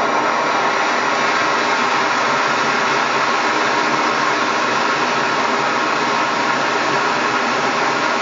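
Loud, steady hiss of a Primus MFS multi-fuel backpacking stove burning propane, its valve being opened up toward full.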